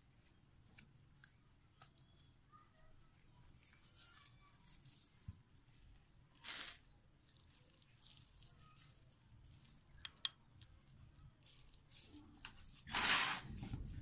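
Faint scraping and rustling of fingers mixing churan spice powder with red chilli and salt in a small bowl, with scattered light clicks. There is a brief louder rustle about halfway and a louder, longer one near the end.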